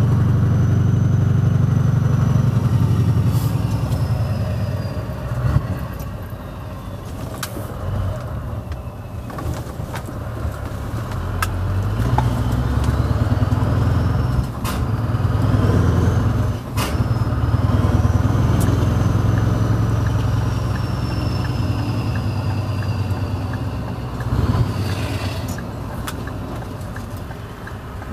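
Scania R500 V8 truck engine with loud exhaust pipes, heard from inside the cab while driving. Its deep drone swells and eases as the truck pulls away and slows, with a brief sharp drop about two-thirds through. A faint high whistle rises and falls along with it.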